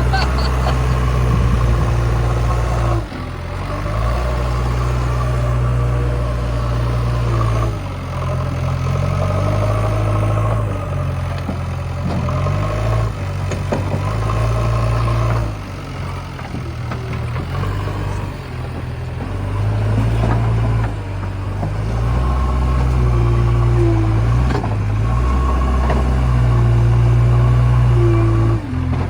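Diesel engine of a JCB 3DX backhoe loader running hard while it digs and loads mud, revving up and dropping back every few seconds as the load changes.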